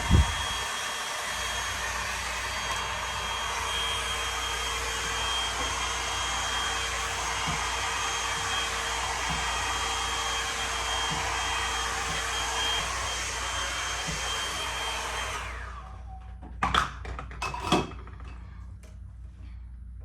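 Handheld hair dryer blowing steadily with a high whine over its rush of air, switched off about three-quarters of the way through. A sharp knock comes right at the start, and a few knocks follow after the dryer stops.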